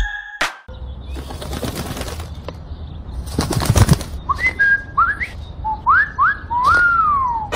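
Cartoon bird sound effects: a flutter of wings about two seconds in and again about four seconds in, then a run of short rising whistled chirps ending in a longer whistle that rises and falls.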